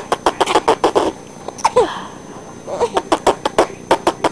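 Baby laughing in rapid breathy bursts, about five or six a second, in two runs with a short pause between them, where a brief falling squeal comes.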